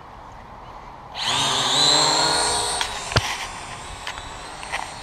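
Syma X8W quadcopter's motors and propellers whining with a buzzy, many-toned pitch. The whine comes in suddenly about a second in, is loud for a second or two, then fades as the drone climbs away. A sharp click just after three seconds.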